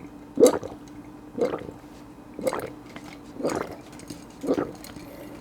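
A person gulping down a drink of barley tea, one swallow about every second, five in a row.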